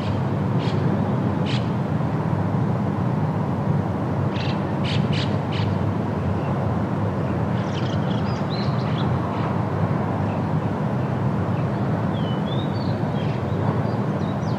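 Steady outdoor ambience with a low rumbling noise, and short bird chirps over it: a few early, a quick group about five seconds in, more around eight seconds, and a curling rising-and-falling call near the end.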